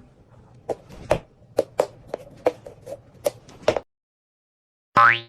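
A run of sharp knocks, about two to three a second, each with a short ring, stopping a little before four seconds in. Near the end, after a gap of silence, a brief loud sound with a rising pitch cuts in.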